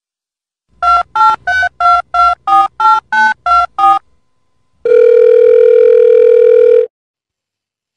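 Telephone touch-tone keypad dialing: about eleven quick beeps in an even run, each a pair of tones, followed by a steady phone tone for about two seconds that cuts off suddenly.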